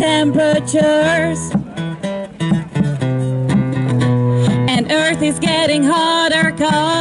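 A woman singing with vibrato into a microphone, amplified through a small portable loudspeaker, accompanied by a strummed acoustic guitar.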